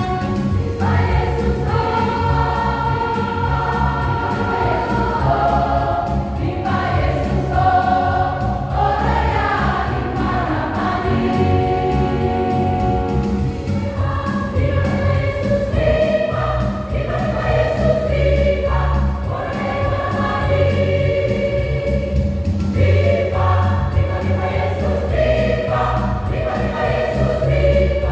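Church choir singing a gospel song in long held chords, over instrumental accompaniment with a steady low beat.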